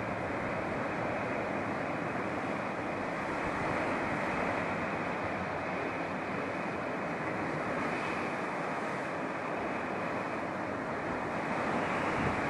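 Sea surf breaking and churning over shoreline rocks: a steady rushing wash of foaming water.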